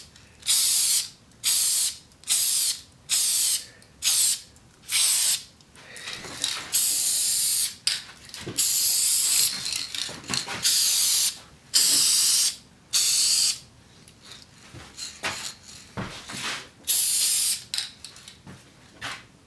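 Aerosol can of walnut medium-brown tint spray hissing in about a dozen short spurts with brief pauses between them: light passes of toner over a stained wooden radio cabinet.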